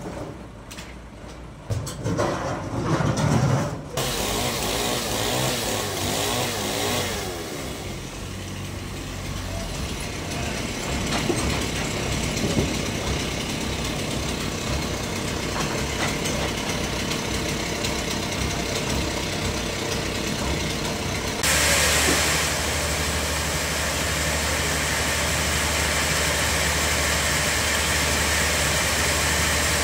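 Sawmill machinery running: after a few knocks, a steady engine-like hum with some rising and falling pitch, which switches suddenly about two-thirds of the way in to a louder, even hum with a hiss, as the large log bandsaw runs.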